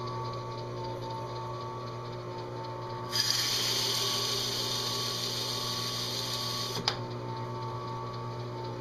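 Drill press running steadily. For about three and a half seconds from three seconds in, an abrasive pad in its chuck is pressed onto a metal dash panel, adding a loud grinding hiss as one engine-turned swirl is cut. The hiss ends with a sharp click.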